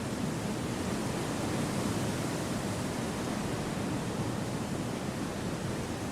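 Gentle wind blowing steadily: an even, unbroken rushing noise, deepest in the low range, with no gusts or distinct sounds standing out.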